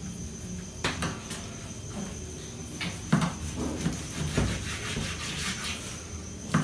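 Knife sawing through a raw picanha (beef rump cap) on a cutting board, with a few sharp knocks and clicks of the blade and hand against the board.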